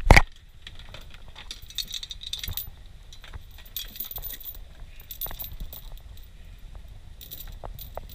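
Two loud knocks right at the start. Then scattered bursts of light metallic clinking and jingling, a few times over the next seconds, over a low steady rumble.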